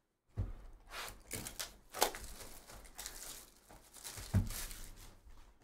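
Clear plastic shrink wrap being torn and peeled off a cardboard trading-card box, crinkling rustle with a few sharp rips, and a dull knock about four seconds in as the box meets the table.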